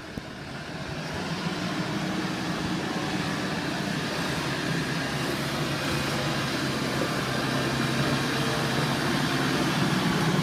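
Farm tractor engine running, heard from inside the cab, getting louder over the first couple of seconds as it picks up revs and then holding steady.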